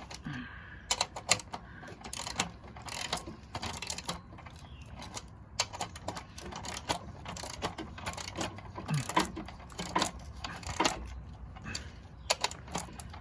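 Irregular metallic clicks and rattles as an electric chainsaw's parts are handled by hand during repair, with no motor running.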